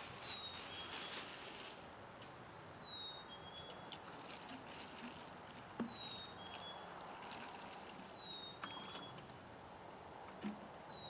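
A bird repeats a clear two-note whistle, a higher note then a slightly lower one, about every two and a half seconds. Under it runs light crackling and rustling of soil and roots being dug and pulled, with a couple of soft knocks.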